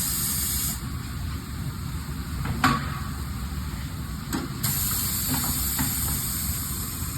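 Compressed air hissing, cutting off just under a second in and starting again about halfway through, with a few sharp clicks in the gap, over a steady low rumble.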